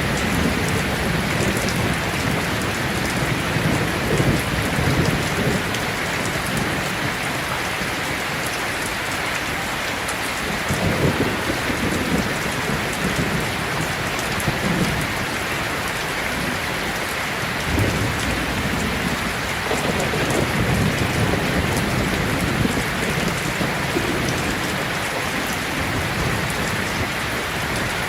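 Heavy rain falling steadily with a constant hiss, while thunder rumbles low in the background, swelling several times: in the first seconds, around the middle and again later.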